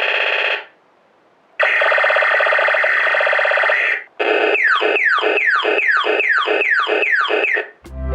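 Toy robot's electronic laser-gun sound effects: a buzzy tone that stops about half a second in, then after a pause a longer buzzy tone of about two and a half seconds, followed by a rapid run of falling zaps, about three a second.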